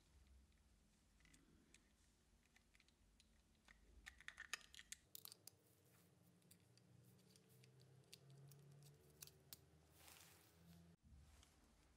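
Faint plastic clicks and scrapes of a 9V battery being pressed onto its snap terminals in a carp-fishing bite alarm and the battery cover being fitted back on. There is a cluster of sharper clicks about four seconds in and a short scrape near the end.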